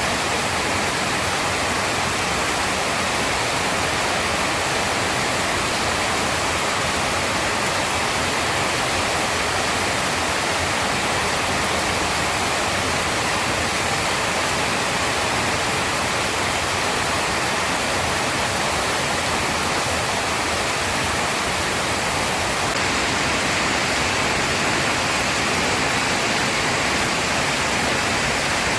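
Heavy rain pouring down in a steady, dense hiss with no thunder, growing slightly brighter about two-thirds of the way through.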